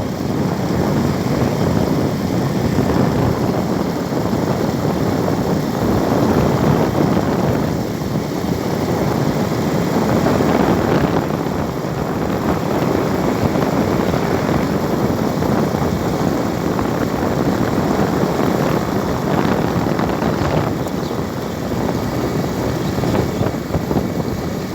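Continuous rushing noise of a moving vehicle, wind and road noise, swelling and easing slightly.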